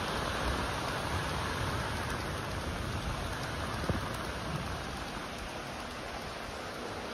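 Steady, even rushing noise that eases a little toward the end.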